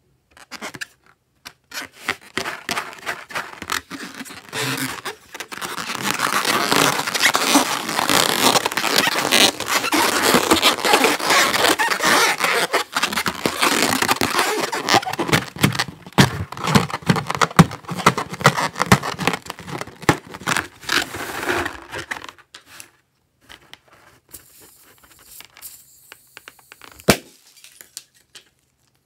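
Rubber balloon rubbed and squeezed between the hands, a dense crackling, scraping sound that stops about 22 seconds in. Quieter scattered rustling follows, with a single knock near the end.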